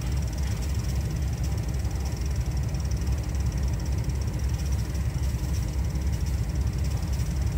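Diesel-electric locomotives running with a steady low rumble, under a faint high hiss.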